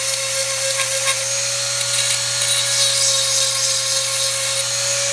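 Dremel rotary tool running with a steady high-pitched whine as its grinding stone grinds the cutter teeth of a chainsaw chain, with a continuous gritty hiss of stone on steel.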